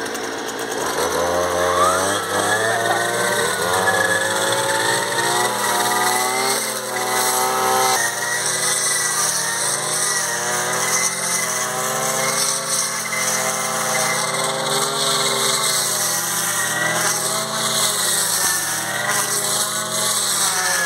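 Two-stroke brushcutter engines (a Stihl FS 160 and a Toyama TBC43X) running, revving up about two seconds in, then rising and falling in speed as the blade cuts through tall braquiária grass.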